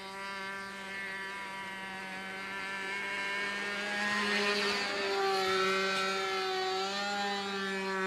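Nitro glow engine of an RC Seamaster float plane flying overhead: a steady high-pitched buzz. It gets louder from about halfway, and its pitch wavers up and down as the plane manoeuvres.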